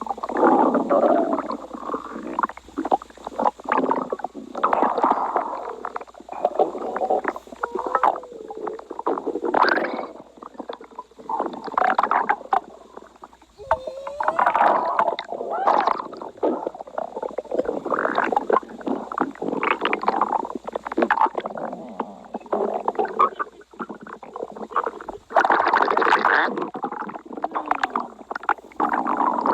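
Stomach growling: nearly unbroken, irregular gurgling and bubbling rumbles that swell and fade, with a few squeaky wavering glides in pitch.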